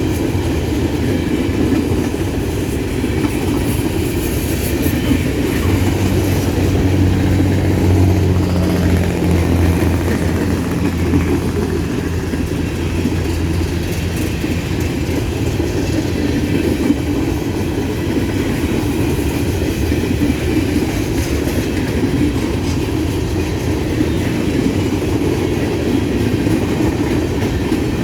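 Empty grain train's covered hopper cars rolling past in a steady rumble with wheel clatter over rail joints. A low drone swells for several seconds near the middle.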